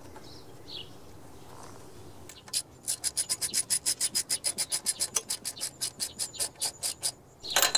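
Socket ratchet clicking rapidly and evenly, about seven or eight clicks a second for several seconds, as a spark plug is run back into the engine of a Snapper rear-engine riding mower. A brief louder clatter comes near the end.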